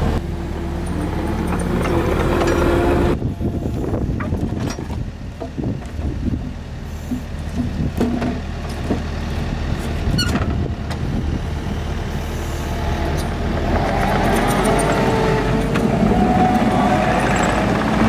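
Tracked skid steer's diesel engine running while its hydraulic grapple picks up and carries wooden posts, with a few clunks. A steady higher whine comes in over the last few seconds as the hydraulics work.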